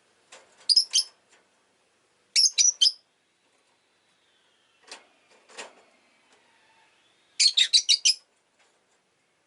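Rosy-faced lovebirds (Agapornis roseicollis) chirping in short bursts of sharp, high chirps, with a quick run of about six near the end.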